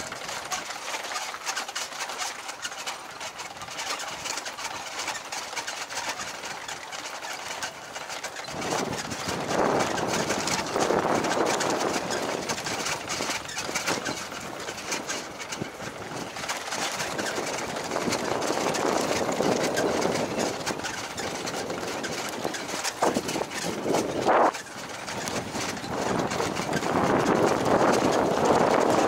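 Motorcycle coasting downhill over a rough stone lane: a noisy rush of tyre and wind noise with rattling knocks from the bumpy surface. It grows louder about nine seconds in and is loudest near the end.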